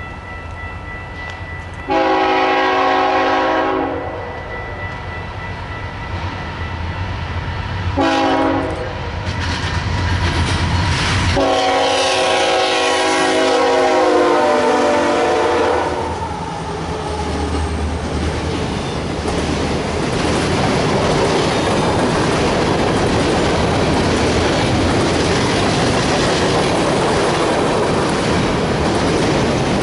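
Diesel freight locomotive's multi-note horn sounding a long blast, a short one, then a long one that drops in pitch as the locomotive passes, over the engine's rumble. After that come the steady rumble and clatter of a string of hopper cars rolling by on the rails.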